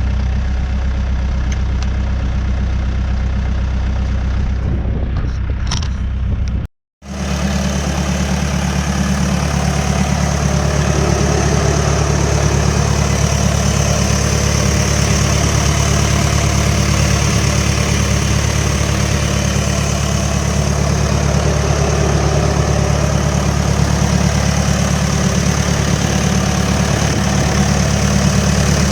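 Diesel engine of a New Holland B100B backhoe loader idling steadily. About seven seconds in the sound drops out for a moment and comes back brighter and a little louder.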